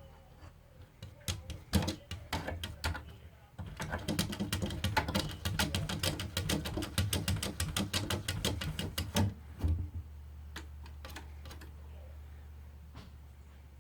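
Plastic cat door flap clattering in its frame as a cat pushes at it: scattered clicks, then a fast run of clacks that stops abruptly, over a steady low hum.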